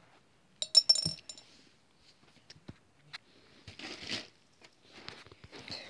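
A brief clink with a high ringing jingle about a second in, then scattered small clicks and soft rustling as toys and fabric are handled close to the microphone.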